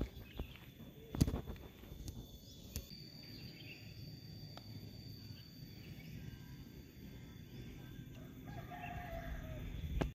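Quiet open-air background. A few sharp knocks and steps close to the microphone come in the first three seconds, then a faint steady high-pitched buzz, and a faint short animal call near the end.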